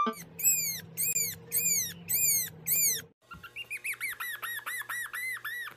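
Puppy whimpering in high, squeaky cries: about six spaced-out cries, then after a short break a quicker run of about a dozen.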